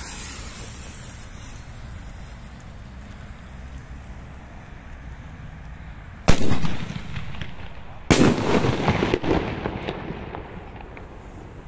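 38 mm Funke comet-bomb firework tube (Grünblinker, green strobe) fired: a loud bang as the shell is launched about six seconds in, then about two seconds later a second bang as the shell bursts, followed by dense crackling for a second or two.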